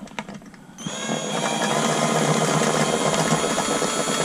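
Cordless drill loosening a bolt on an outboard motor's lower unit, with a few light clicks and then the motor running steadily from about a second in. It cuts off abruptly near the end.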